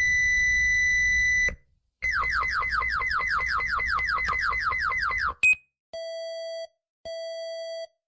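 Emergency alert alarm: a steady high-pitched electronic tone that stops about a second and a half in. After a short pause comes a rapid series of falling electronic sweeps, about five a second, for three seconds. Near the end this gives way to evenly spaced lower beeps, about one a second.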